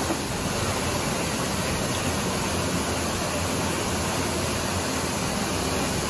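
Waterfall pouring over rock ledges into a plunge pool: a steady, even rush of falling water.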